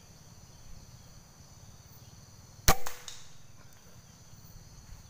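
One air rifle shot a little over halfway in: a sharp crack followed at once by a second, softer knock, over steady high insect buzzing.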